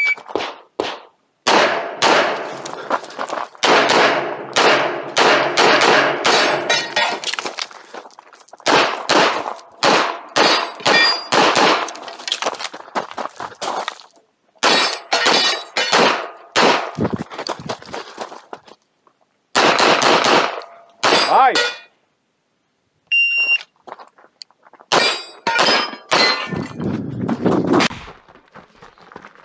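Pistol fired in fast strings of shots on a practical-shooting stage, with steel targets clanging when hit. A short electronic shot-timer beep sounds at the start and again about 23 seconds in, each followed at once by a new string of shots.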